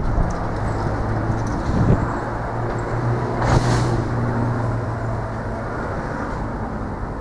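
Distant train running along the main line: a steady low rumble and hum. There is a brief louder rush about halfway through.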